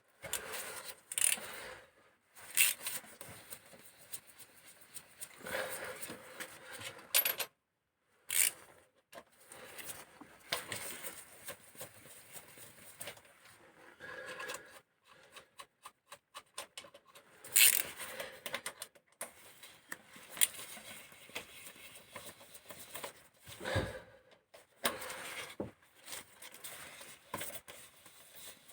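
Hand tools and loose metal parts clinking and scraping in irregular short clicks, with quiet gaps, as the camshaft of a VAZ Priora 16-valve engine is being dismantled; the engine is not running.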